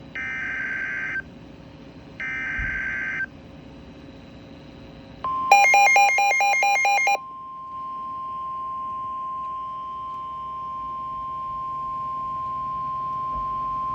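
NOAA Weather Radio alert signalling: the last two of the three buzzy SAME digital header bursts, each about a second long, announcing a tornado warning. These are followed by the steady 1050 Hz warning alarm tone, which runs about nine seconds. A loud pulsing electronic beep sounds over the start of the tone for about a second and a half.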